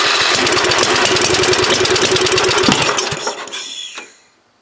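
Lawn tractor's small engine firing on starter fluid and running roughly for about three seconds, then dying out: it has caught but will not yet keep running on its own.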